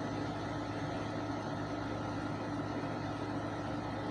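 Steady background hum and hiss with no growl or other distinct sound.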